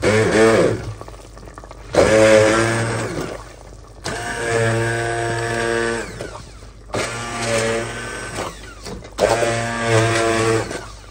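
Stick hand blender whirring in five short bursts of a second or two each, puréeing boiled potato and cauliflower leaves in their cooking water in an aluminium pot into a smooth paste. Its whine dips in pitch at the first burst.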